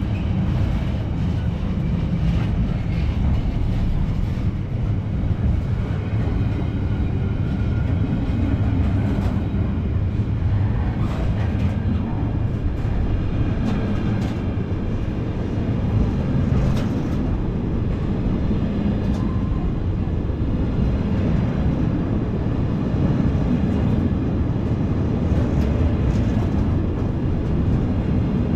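Container freight train's wagons rolling past close by: a steady low rumble of wheels on rail, with a few short knocks now and then.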